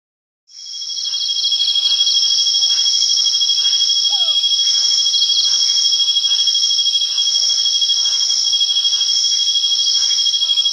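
Crickets chirping in a dense, continuous high-pitched chorus that fades in about half a second in. A few quicker trains of chirps stand out over it.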